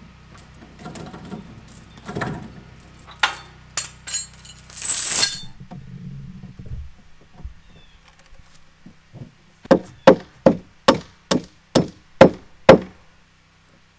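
Metal chain clinking and rattling, with a loud rattle about five seconds in. Near the end a claw hammer strikes a wooden 4x4 beam eight times in a steady run, about two blows a second.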